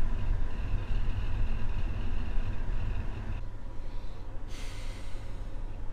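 Wind buffeting the microphone high on a tower crane, a steady low rumble, with a thin high whine that stops about three and a half seconds in and a short hiss near the end.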